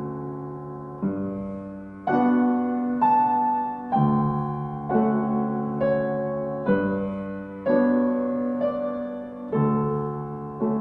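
Background piano music: slow, gentle chords and notes struck about once a second, each dying away before the next.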